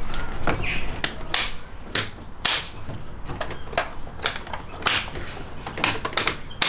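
Plastic airbox lid on a Toyota 2.8L turbo diesel being pressed into place and its clips snapped shut: a string of sharp plastic clicks and knocks.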